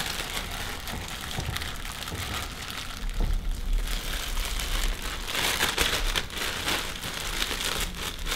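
Thin plastic freezer bag crinkling and rustling as hands scoop marinated shrimp from a metal bowl into it and handle the filled bag, with louder spells about three and five and a half seconds in.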